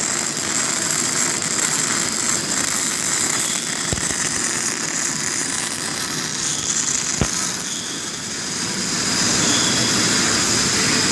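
Cutting torch hissing steadily while cutting out a bushing from steel plate, with two sharp clicks about four and seven seconds in.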